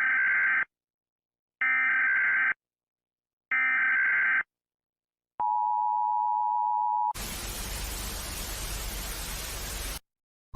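Emergency Alert System-style alarm. Three short, buzzy data bursts come about two seconds apart, the digital header. They are followed by the two-tone attention signal for under two seconds, then about three seconds of static hiss that cuts off suddenly.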